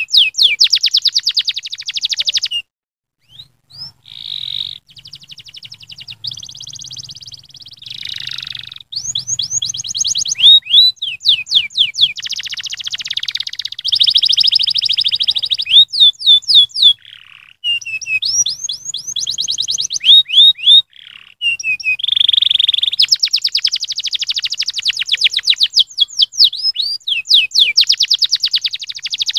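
Canary singing a long, loud song of fast trills and rolling runs of rapidly repeated notes, with quick falling sweeps, broken by a short pause about three seconds in and another past the middle.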